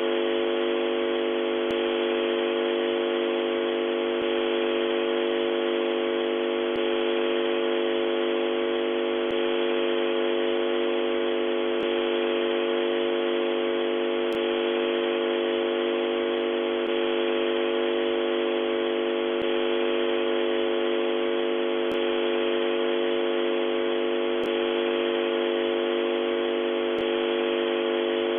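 Radio transmitter sound effect: a steady electronic hum of several held tones over static hiss. It has a thin, radio-like sound with the lows and highs cut off.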